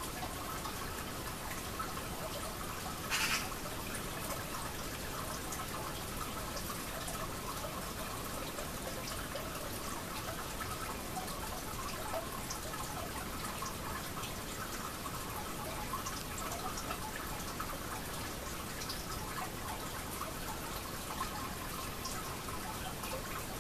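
Steady hiss of background noise with small scattered clicks, and one brief louder rustle about three seconds in.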